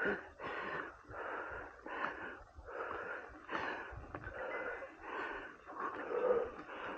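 A cyclist breathing hard from exertion: quick, heavy breaths about two a second, each a short rush of air.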